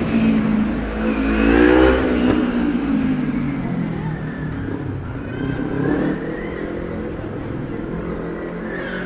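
A car accelerating past on a city street, its engine loudest about two seconds in, then fading into the general traffic noise.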